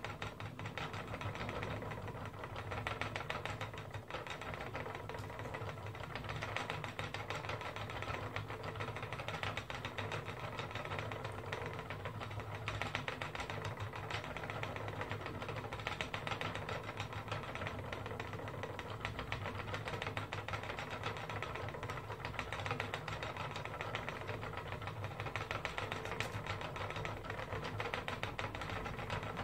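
Wooden spinning wheel running steadily as wool is spun: a continuous mechanical whir with rapid, even ticking.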